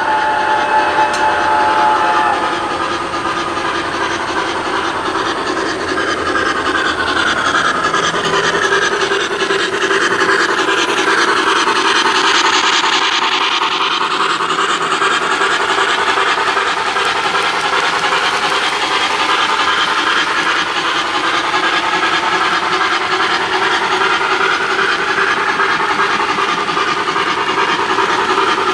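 Model railroad freight cars rolling past on metal track, a steady rolling rush whose tone slowly sweeps and shifts as the cars go by close. A steady multi-note tone sounds in the first two seconds.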